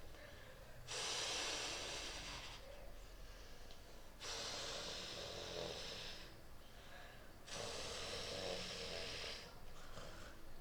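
Dinosaur breathing sound effect for an Acrocanthosaurus: three long, rasping, hissing breaths of about two seconds each, coming roughly every three seconds, with softer breaths between them.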